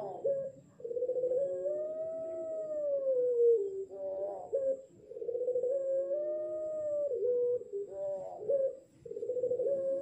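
A six-month-old puter pelung, a ringneck dove still learning its song, cooing three times in a row. Each coo opens with a quick warble and swells into a long howl-like note that rises and falls, ending in a short broken note.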